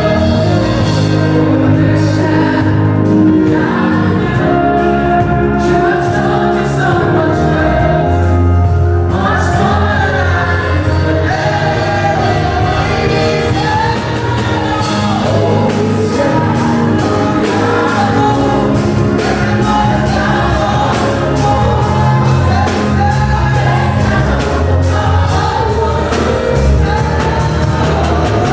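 Gospel worship music with a choir singing over sustained bass notes.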